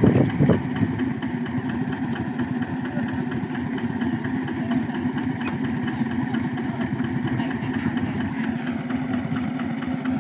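Engine of a two-wheel hand tractor (walking tractor) running steadily at idle, with a brief louder burst right at the start.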